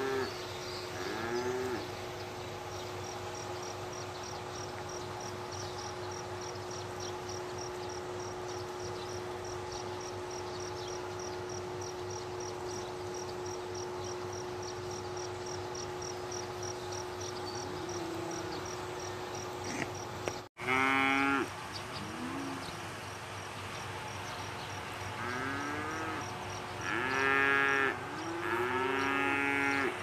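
Dairy cows mooing: two short calls at the start, then a run of louder, repeated moos in the second half. Between the calls, a cricket chirps in steady high ticks, about three a second, over a faint steady hum.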